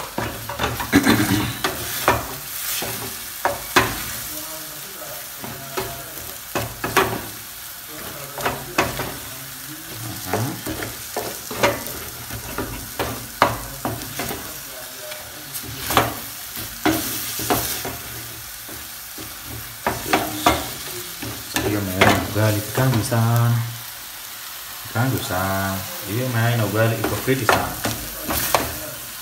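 A wooden spoon stirs and scrapes a frying egg-and-tomato mixture in a stainless steel frying pan, with repeated sharp scrapes and knocks against the pan. Under them the food sizzles steadily.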